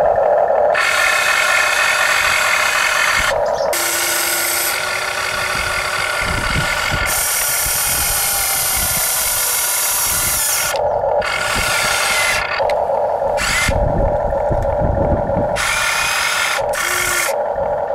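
Huina RC excavator's small electric motors and gearboxes whirring in short runs, starting and stopping abruptly as the boom, arm and bucket are worked.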